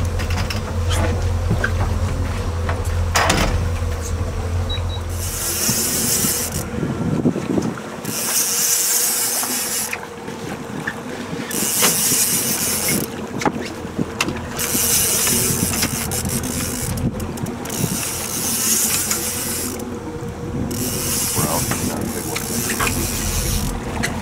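Fishing boat's motor running at trolling speed, a steady low hum that drops away about five seconds in. After that, loud bursts of high hiss come and go every second or two.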